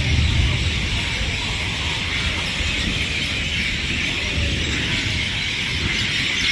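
A steady, high-pitched chorus of night insects, over a low rumble.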